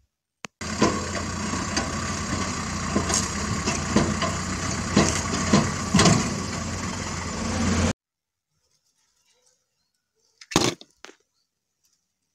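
Excavator working rock: a steady engine drone under repeated sharp cracks and knocks of stone as the bucket pushes and breaks it. The sound cuts off suddenly about eight seconds in, and a single short noise follows a couple of seconds later.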